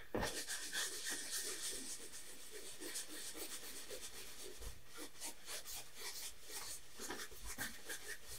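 Flat paintbrush, about two inches wide, scrubbing oil paint across a canvas in repeated short, scratchy strokes.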